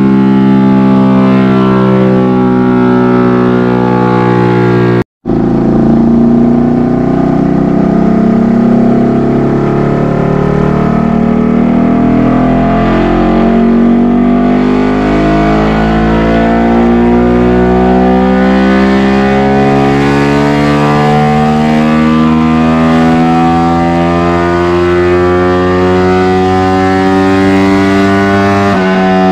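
Yamaha Y15ZR single-cylinder four-stroke engine, built with a 65 mm bore, a stroker crank and an NLK exhaust, running on a chassis dyno. It holds steady revs for about five seconds, then, after a brief break in the sound, pulls under full throttle in one long, steady rise in pitch up to about 12,000 rpm near the end.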